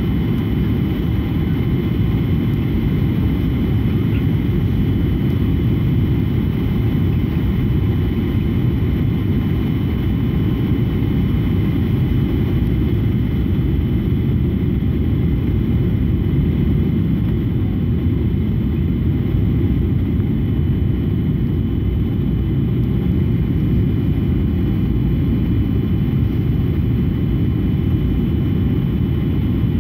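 Steady cabin noise inside an airliner in flight: a dense, even low rumble of rushing air and engines, with a few faint steady whining tones above it.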